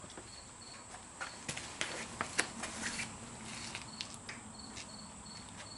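A cricket chirping in regular short chirps, two to three a second. A few sharp clicks and taps sound between about one and a half and four seconds in, the loudest of them at about two seconds.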